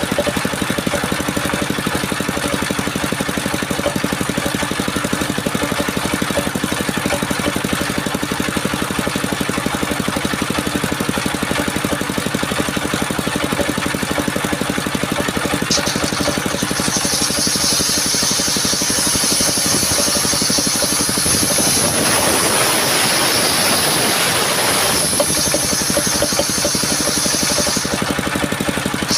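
Engine of a portable circular sawmill running steadily. Past the middle a high whine joins for about ten seconds, growing rougher for a few seconds within it, then drops away.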